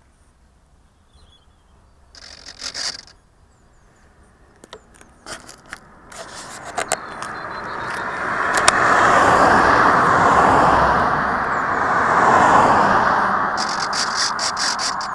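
Cars driving past on a road: tyre and engine noise swells from about six seconds in, peaks twice, then begins to fade. A few sharp clicks come before it.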